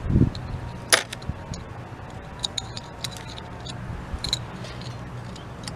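Small metal parts of a carburetor handled by hand while a choke plate is fitted and lined up in the choke: one sharp click about a second in, then scattered light clicks and clinks.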